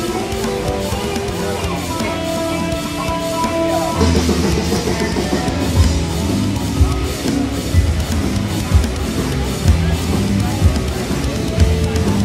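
Rock music with electric guitar: held chords at first, then a steady drum beat comes in about four seconds in.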